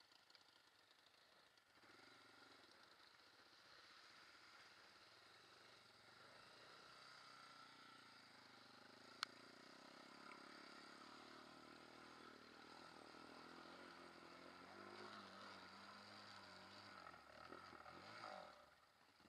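Faint, muffled quad bike engine running as the quad rides through deep muddy water, with one sharp click about nine seconds in.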